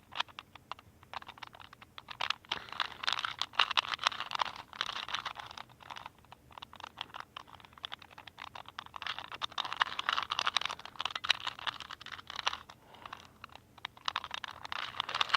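A 2×2 Rubik's cube being turned quickly by hand, its plastic layers clicking in rapid runs with short pauses between them.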